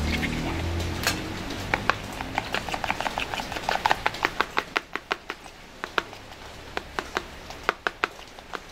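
Knife chopping on a cutting board: a quick run of sharp knocks, about four a second, starting about two seconds in and growing sparser near the end. A low hum fades out in the first second.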